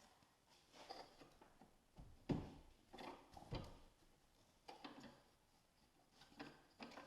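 Faint, irregular knocks and clicks of handling, with one louder knock about two seconds in.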